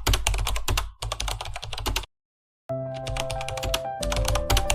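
Rapid typing on a computer keyboard, a fast run of key clicks. It cuts out about two seconds in, then resumes under music with sustained notes.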